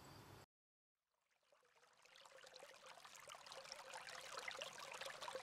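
Near silence, then a faint hiss slowly fading in from about two seconds in and cutting off abruptly at the end.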